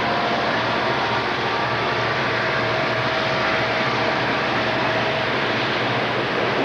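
Several Southern Pacific diesel-electric locomotives passing close by, a steady loud rumble of engines and wheels on rail with a faint steady whine running through it.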